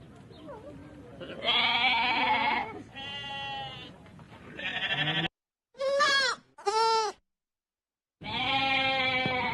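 Domestic goats bleating: six separate calls one after another. The fourth and fifth are short and sit between stretches of dead silence, as spliced-in recordings, and the last is a long bleat held near the end.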